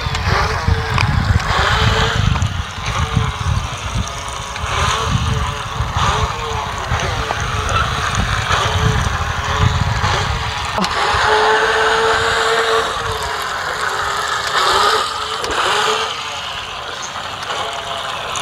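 Motor of a small radio-controlled speedboat whining steadily as it runs across the water, its pitch wavering and rising a little for a moment about twelve seconds in, over a low rumble.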